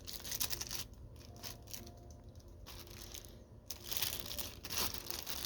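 Wrapping crinkling and rustling in irregular bursts as a pair of sunglasses is unwrapped by hand.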